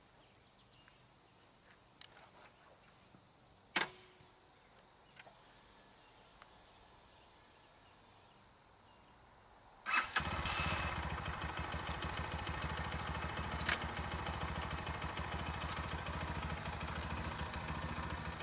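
Lifan KPR200 motorcycle's single-cylinder engine starting about ten seconds in and settling into a steady idle. Before it, only a few quiet clicks and one sharp knock.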